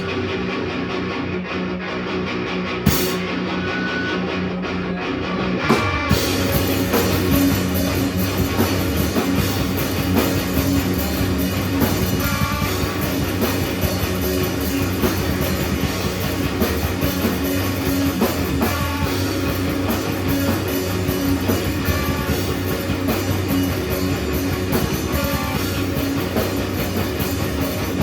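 Rock music with guitar and drum kit playing throughout; about six seconds in it turns fuller and brighter as the full band comes in.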